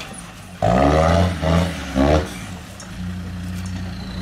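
Land Rover Discovery TD5's five-cylinder turbodiesel revved in three quick rising bursts while the truck climbs off-road, then running steadily at a lower, even note.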